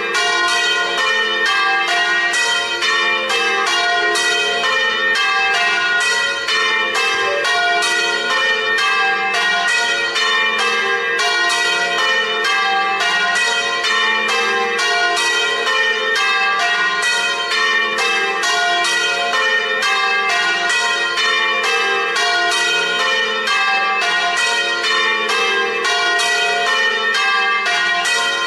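A set of church bells ringing a full festive peal, the bells striking in a rapid, even succession of several strokes a second, their tones overlapping without a break. It is the festive ringing that calls the parish to mass.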